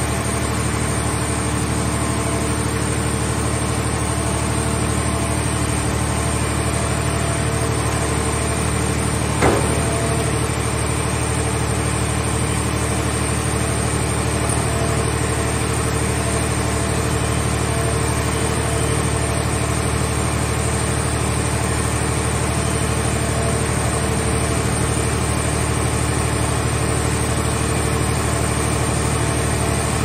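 Movable scrap car baler's power unit running steadily while its grapple arm handles a car shell, with one sharp knock about nine and a half seconds in.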